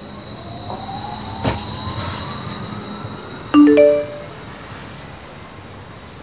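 Electronic sound effects: a steady high tone under a slowly rising tone, a sharp knock about one and a half seconds in, then a loud quick chime of three rising notes a little past halfway.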